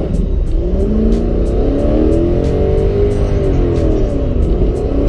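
Nissan S13's swapped Toyota 1UZ V8 engine heard from inside the cabin, its revs rising and falling repeatedly as the car is driven. Background music with a steady beat runs underneath.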